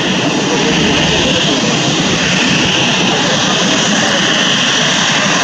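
Jet engines of a LATAM Airbus A320-family airliner at taxi power close by: a loud, steady rushing whine with no pauses.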